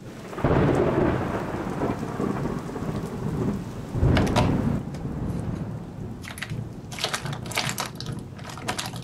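Thunderstorm sound effect, rain with a low rumble of thunder about four seconds in. From about six seconds on, crackling and clicking of cardboard as an advent calendar door is pried open.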